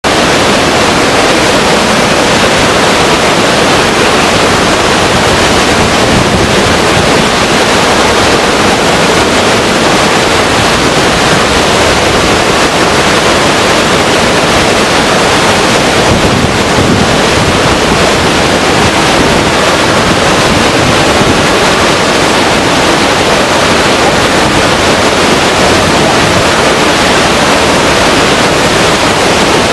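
Waterfall rushing: a loud, steady roar of falling water that does not change.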